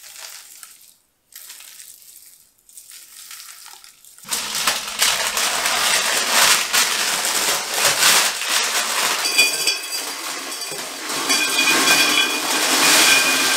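Baking paper rustling and crisp baked granola sliding off it into a large glass jar, a dense rattle with clinks against the glass, starting about four seconds in.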